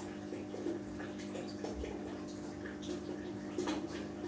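Aquarium filter return stream pouring and splashing steadily into the tank's water surface, over a low steady pump hum.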